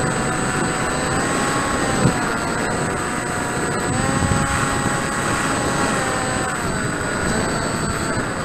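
Drifter aircraft's propeller motor running in low flight over a rush of wind noise, its pitch rising about one second in and again about four seconds in, then falling near the end, with a steady high-pitched whine throughout.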